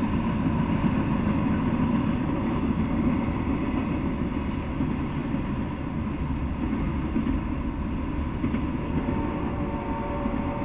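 A freight train of autorack cars rolls past at a steady speed: a continuous rumbling noise of steel wheels on the rails. Faint high steady tones come in near the end.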